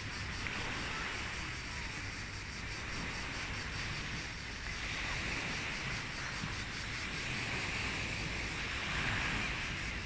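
Sea waves washing in a steady rushing noise that swells and eases every few seconds, with wind rumbling on the microphone.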